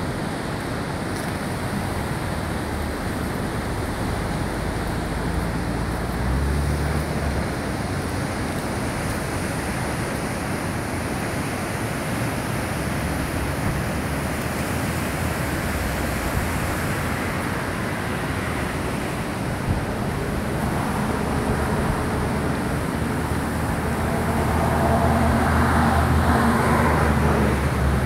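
Pacific surf breaking and washing in as a steady rush, with wind on the microphone. In the last several seconds a low hum of road traffic builds and gets a little louder.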